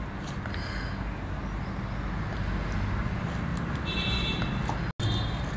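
A steady low hum, with faint soft dabbing of a silicone pastry brush as oil is brushed onto batter-coated stuffed chillies in an air fryer basket. A brief faint high tone comes about four seconds in.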